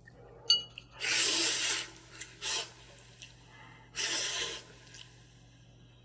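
A person slurping spicy instant noodles: two long sucking slurps, about a second in and again at about four seconds, with a shorter slurp and small wet mouth clicks between.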